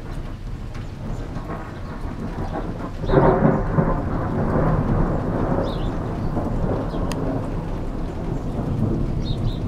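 Thunder: a low rumble that breaks into a loud clap about three seconds in, then rolls on as a long rumble, over steady rain.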